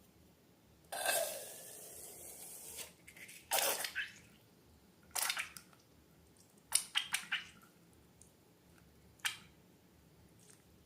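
Slime being handled in close-up: a hissing rush of about two seconds, then a string of short wet squishes and clicks with quiet gaps between them.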